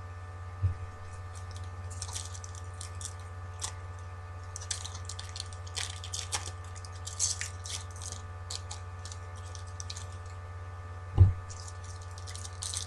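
Foil trading-card pack wrappers crinkling and tearing as they are opened by hand, in short irregular crackles over a steady electrical hum. A dull thump comes about a second in, and a louder one near the end.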